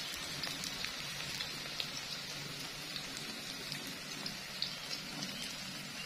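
Sliced spices and chillies frying in oil in a wok: a steady sizzle with scattered small pops and crackles.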